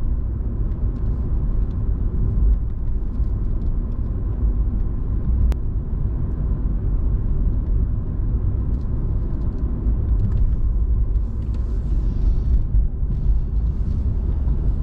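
Steady low rumble of a car driving at highway speed, heard from inside the cabin: road and engine noise.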